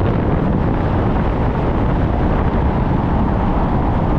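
Loud, steady rumbling wind noise buffeting the microphone, with no distinct events in it.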